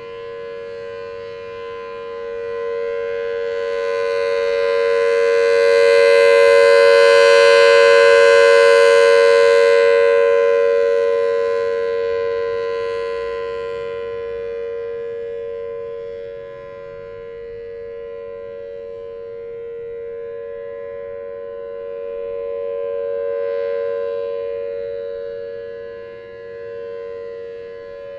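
Federal Signal Thunderbolt 1003A outdoor warning siren sounding a steady alert tone for a tornado drill. Its rotating horn makes the tone swell louder and brighter about seven seconds in, fade, and swell again near the end.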